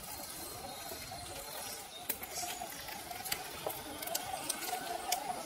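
Small electric motor and gears of a Reely Free Men RC scale crawler whining as it creeps forward over the forest floor. Sharp clicks and crackles of its tyres going over twigs and dry leaves, coming more often from about two seconds in.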